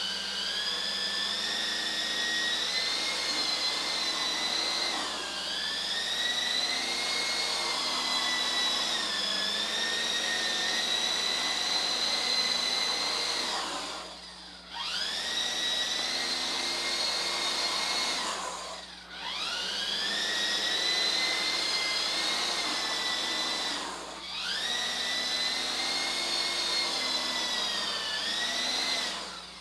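Small electric coaxial RC helicopter's motors and rotors whining at near-hover throttle, the pitch sagging and rising as the throttle and sticks are worked. Three times the whine drops away briefly and spins back up, and it spins down at the end.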